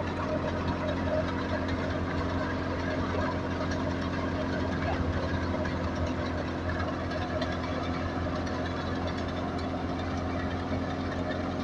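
Belt-driven wheat thresher running steadily, powered by a tractor's diesel engine: a constant mechanical drone with a steady engine hum underneath and the rattle of the threshing drum over it.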